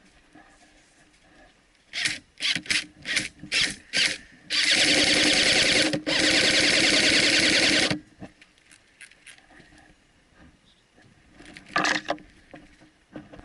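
Airsoft electric rifle firing close by: about seven quick single shots over two seconds, then two full-auto bursts of about a second and a half each, a fast, even rattle. A short burst of a few shots comes near the end.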